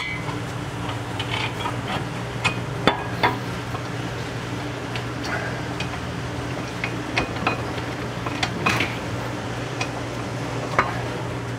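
Irregular metallic clinks and knocks of a 2005 Acura MDX's front brake caliper being handled and fitted back over the brake rotor, over a steady low hum.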